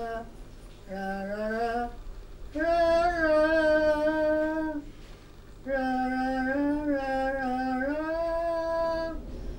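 A wordless voice humming a slow melody in long held notes with a slight vibrato, sliding up into some notes, with short pauses between phrases.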